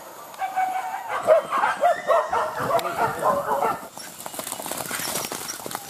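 A pack of hunting dogs barking and yelping in quick, overlapping calls for the first few seconds. Then a rustling, crackling noise without barks.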